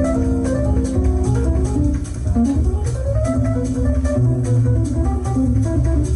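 Instrumental music: melodic notes over a deep bass and a steady ticking beat.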